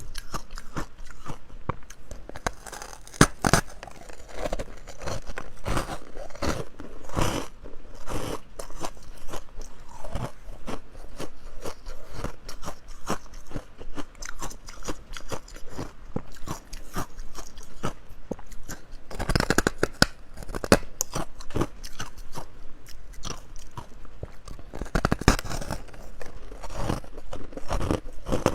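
Close-miked crunching and chewing of ice chunks: a steady run of sharp, crackling bites and crunches, with a few louder clusters of bites.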